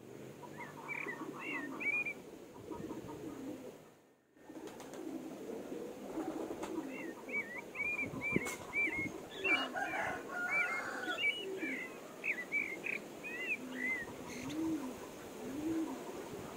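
Domestic pigeons cooing over and over in low, rising-and-falling calls, with a run of high, quick chirps from other birds over them. The sound cuts out briefly about four seconds in.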